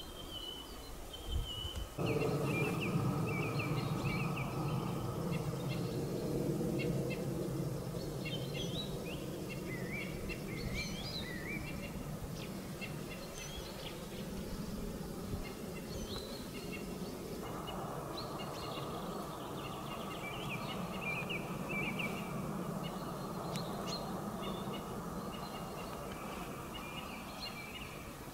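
European robin singing: short, varied high warbling phrases with sudden pitch jumps and brief pauses between them. Beneath it a steady low background rumble sets in abruptly about two seconds in and continues.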